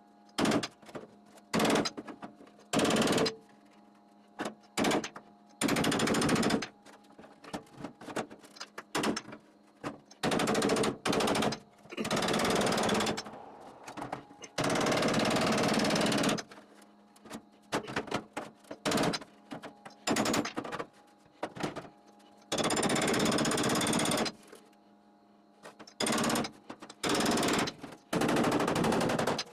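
Steel concrete stake rolled and pressed along the thin sheet-metal bottom of a Kobalt tool chest, making a loud metallic rattle in repeated bursts of one to two seconds, with sharp knocks in between.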